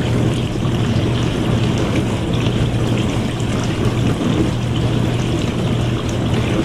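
Dishwasher running: water spraying and splashing inside the tub over a steady low motor hum.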